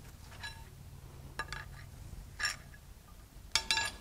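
Sparse light metal clicks as a tool works at a connecting-rod cap on a Mazda MZR 2.3L turbo engine's crankshaft, then a quick cluster of ringing metal clinks near the end as the cap comes loose.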